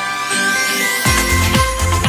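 Electronic background music with a steady beat; the bass and beat drop out for about the first second under a rising sweep, then come back in.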